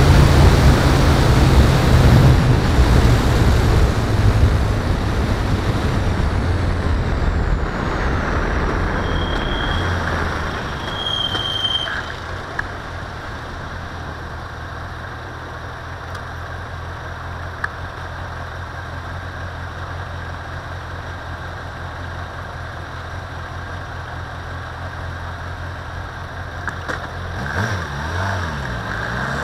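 Vehicle engine and wind noise on the outside-mounted camera while driving, easing off over the first ten seconds as the vehicle slows to a stop. The engine then idles with a steady low hum, and near the end it revs up, rising in pitch, as the vehicle pulls away. Two short high squeals sound as it comes to a halt.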